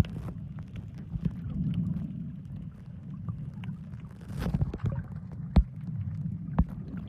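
Muffled water noise picked up by a camera held underwater: a steady low rumble with scattered clicks and knocks, and a brief rush about four and a half seconds in.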